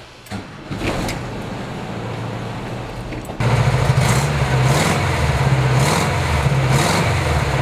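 1971 VW Westfalia camper's 1600 cc air-cooled flat-four engine starting and running, first heard from inside the cab. About 3.4 s in it is suddenly louder and close at the tailpipe, with the throttle blipped about four times.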